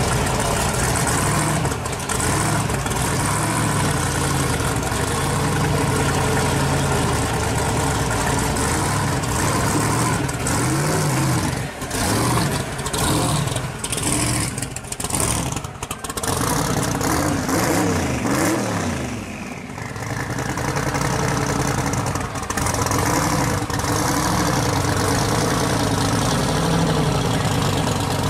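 Twin-turbo engine of a 1955 Chevy pro street drag car idling steadily, revved up and down several times around the middle.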